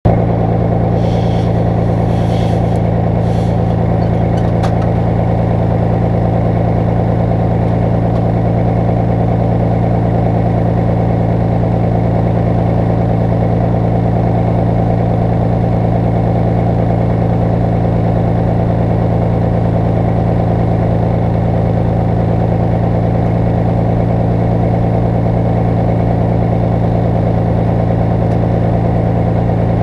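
Detroit Diesel 12V-71 two-stroke V12 diesel in a Kenworth W900A, idling steadily at an even pitch with no revving.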